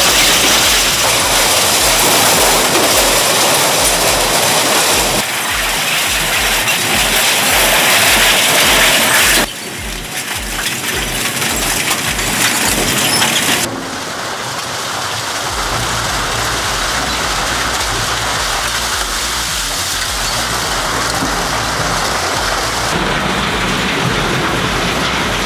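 Industrial shredding machinery: a loud, dense crackling and clattering noise of material being torn and ground. Its character changes abruptly several times, about 5, 9 and 14 seconds in and again near the end.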